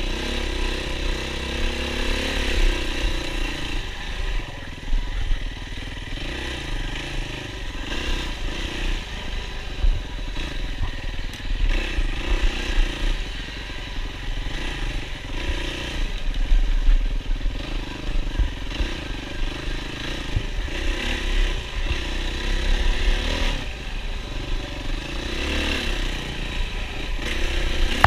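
Yamaha WR450F single-cylinder four-stroke dirt bike engine being ridden hard off-road, its revs rising and falling repeatedly as the throttle is worked on and off.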